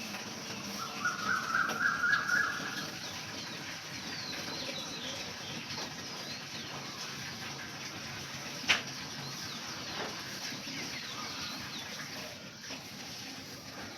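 Several birds calling at a feeding spot: short high chirps throughout, with a fast run of repeated notes lasting about two seconds near the start, and one sharp click about two-thirds of the way through.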